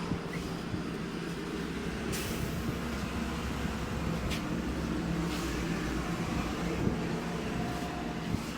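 Motor vehicle engine running steadily, a low hum with a held pitch, with a few faint clicks over it.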